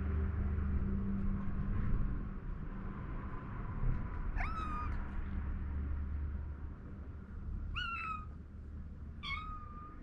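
A kitten meowing three times: short, high-pitched mews a few seconds apart, over a low background rumble.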